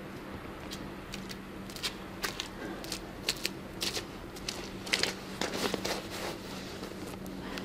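Puffer jacket rustling and white over-ear headphones being taken from a pocket and handled: irregular crisp rustles and small clicks, busiest about five seconds in, over a faint steady low hum.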